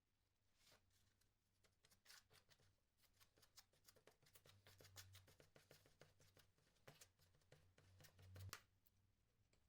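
Faint, irregular clicks and scrapes of hand tool work on wood, over a low steady hum.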